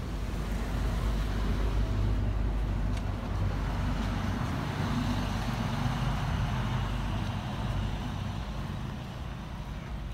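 Red city bus driving along a snow-covered street: a low engine rumble with tyre noise on snow and slush, building over the first couple of seconds and fading toward the end.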